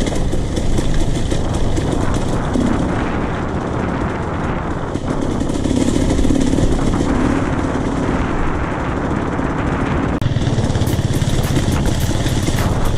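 Enduro motorcycle engine running under way, with the rush of wind and rough ground. The sound drops out for an instant about ten seconds in, then goes on with many quick clicks and knocks.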